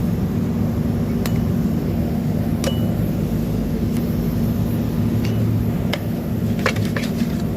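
Cast iron rings and steel screwdrivers clinking sharply every second or so as the rings are pried into their grooves, a couple of clinks leaving a short metallic ring. The clinks come faster near the end, over a steady low hum.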